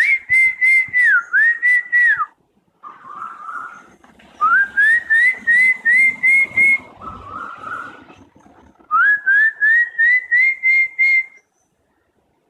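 A person whistling in imitation of an Asian koel: three runs of short notes, about three a second, each note gliding upward. They alternate with an Asian koel's fainter calls answering in the gaps, a little after the first run and again after the second.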